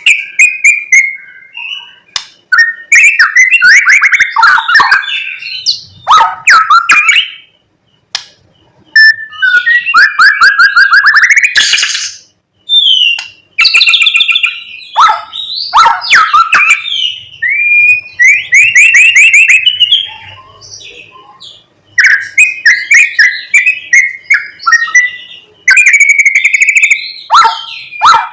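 White-rumped shama (murai batu) singing loudly in varied phrases, full of mimicked songs of other birds. Clear whistles, fast rattling trills and scratchy notes come in bursts of one to three seconds with short pauses between.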